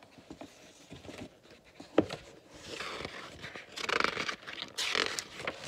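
A picture book's page being turned by hand: paper rustling and sliding, with a sharp knock about two seconds in from the book being handled.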